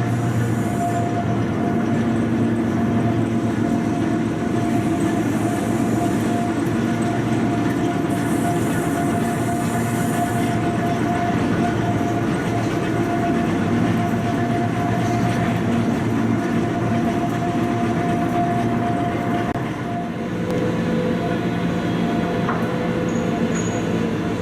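A train running with a steady mechanical hum over rumbling noise. About 20 seconds in, the hum shifts lower in pitch.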